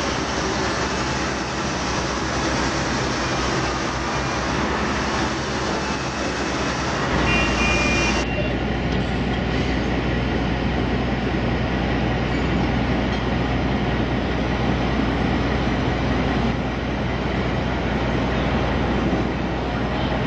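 Giant P&H L-2350 mining wheel loader running, a steady low rumble with broad rushing noise over it. About eight seconds in, a brief high two-tone beep sounds, then the sound turns to a steadier deep hum with less hiss.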